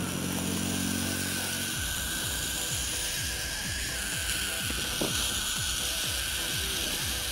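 Burrowing owl giving a long, steady rasping hiss, its defensive threat call, over background music with a regular low beat.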